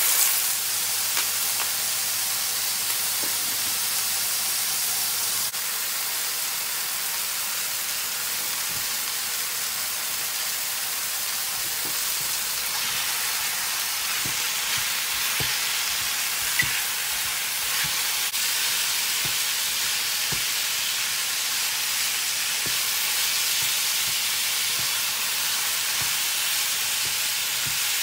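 Minced pork and diced mushrooms sizzling steadily in a hot frying pan while being stirred, with light knocks of a wooden spatula against the pan every second or two.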